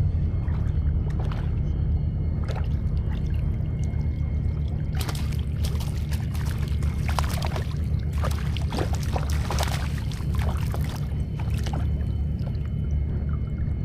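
Water splashing and sloshing in shallow bay water, densest for several seconds in the middle, over a steady low rumble.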